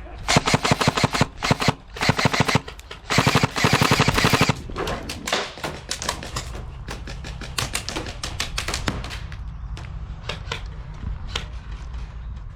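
Airsoft guns firing on full auto: several rapid bursts in the first few seconds, the longest about a second and a half, then scattered single shots and short strings.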